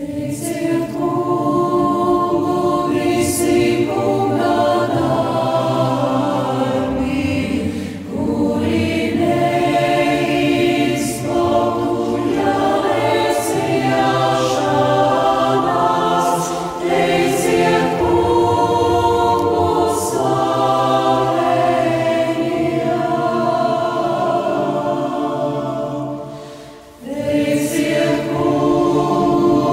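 Mixed choir of men and women singing a liturgical hymn in Latvian, in long phrases with brief breaks between them and a longer pause near the end.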